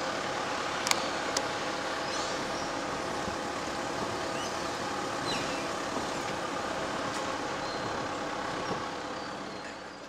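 Holden Rodeo four-wheel drive running along a sandy bush track, heard from inside the cab: steady engine and road noise with two sharp clicks about a second in. The sound fades out near the end.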